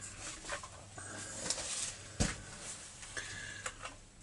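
Faint handling noises from trimmer parts being reassembled: light clicks and scrapes, with one dull knock about two seconds in, over a low steady hum.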